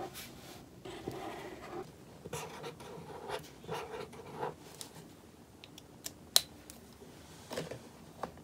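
Hands working on a paper card: short scratching and rustling strokes on paper, with a single sharp click about six seconds in.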